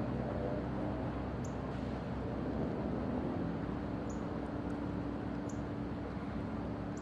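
Steady outdoor ambience: an even rushing noise with a low hum beneath it, and a few short, faint high chirps scattered through.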